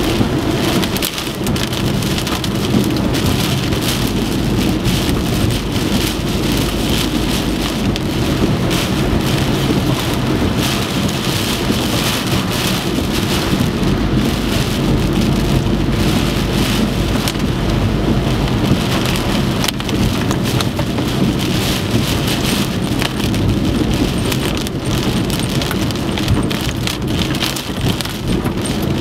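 Heavy typhoon rain pouring down and drumming on a surface, dense and unbroken, with a faint steady low hum underneath.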